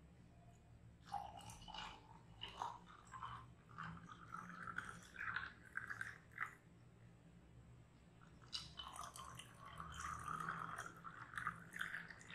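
Clear soda poured into glass jars of raw-mango syrup and ice, fizzing and crackling faintly. One glass fills for several seconds, then a second pour starts about eight and a half seconds in.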